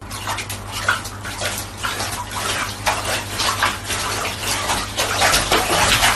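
Water splashing in a bathtub as a Shiba Inu paddles its front paws in it, in irregular splashes that grow louder toward the end.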